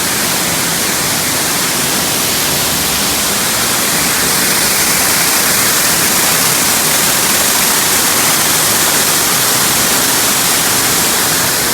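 Waterfall in a cave: a steady, loud rush of falling water.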